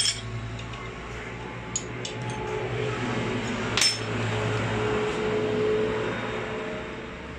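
Metal tools and a diesel fuel injector clinking as they are handled, with a few sharp clicks (the loudest about a third of the way in), over a steady low mechanical hum.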